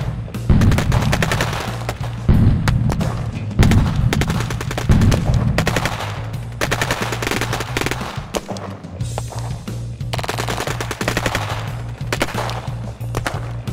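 Rapid machine-gun fire sound effects, with heavy low thuds about every second and a half in the first five seconds, over background music.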